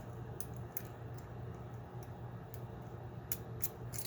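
Small metallic clicks and ticks from a pin-tumbler challenge lock and lockpicking tools being handled on the bench: about seven sharp clicks at irregular intervals, over a low steady hum.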